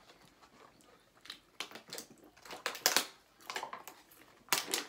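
Scattered, irregular crunching and crinkling as fries and chicken nuggets are eaten and the fry carton and packaging are handled, with the sharpest crunches about three seconds in and near the end.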